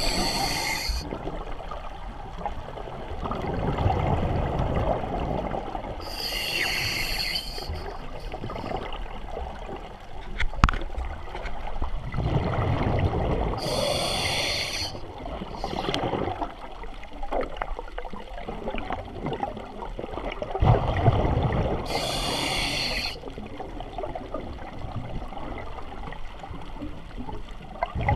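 Underwater breathing from a Spare Air mini scuba bottle: a short, sharp hiss of air through its mouthpiece regulator on each inhale, four times, and a low rumble of exhaled bubbles between them, about one breath every eight seconds.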